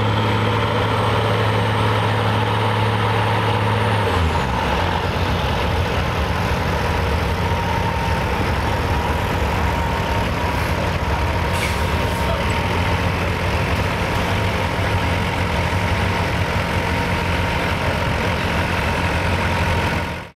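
Ford semi truck's diesel engine held at high revs, then dropping to a lower idle about four seconds in, with a high turbo whine winding down at the same moment. A short hiss comes about halfway through.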